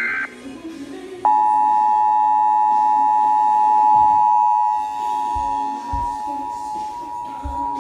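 Emergency Alert System two-tone attention signal (853 Hz and 960 Hz sounded together), a steady loud tone starting about a second in. Just before it, the tail of a buzzy SAME header data burst cuts off.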